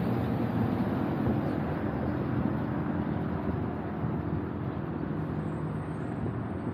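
Steady vehicle and road noise, an even rushing sound with a low hum underneath.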